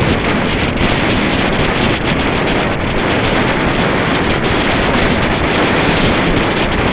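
Wind buffeting the microphone of a camera on a moving road bicycle: a loud, steady rushing noise with no breaks.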